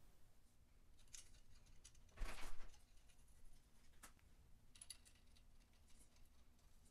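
A few light metallic clicks and one brief scraping rustle as small metal parts are handled: tappet adjusters being fitted loosely to a 1951 Vincent Rapide engine.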